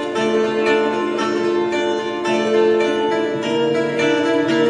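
Live acoustic music led by a lute-type plucked string instrument, picking a melody over longer held lower notes.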